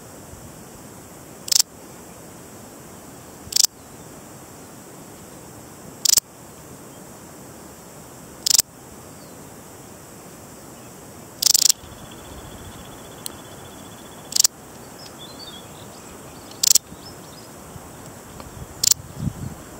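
Balearic saddle bush-cricket (Parasteropleurus balearicus) stridulating: eight short, high, buzzy chirps, one every two to three seconds, with a slightly longer chirp near the middle.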